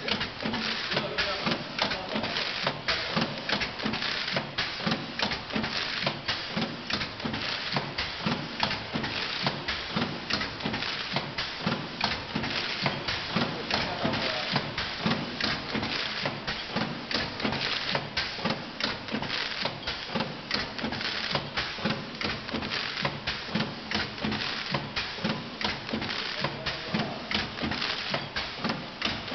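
Automatic vertical coffee sachet packing machine running, its sealing and cutting mechanism clacking in a fast, steady rhythm of several strokes a second over continuous machine noise.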